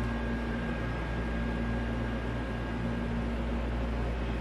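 Steady low mechanical hum with a faint thin high tone running through it, the even drone of a running appliance such as a fan or air conditioner.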